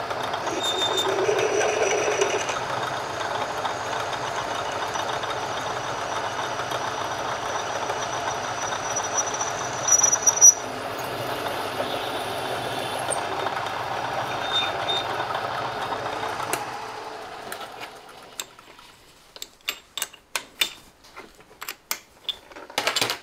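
An old metal lathe running at slowed speed while a half-inch twist drill in the tailstock bores a hole out to its finish size, the cut giving a thin high squeal over the first ten seconds or so. At about seventeen seconds the lathe winds down and stops, and scattered clicks and rattles follow.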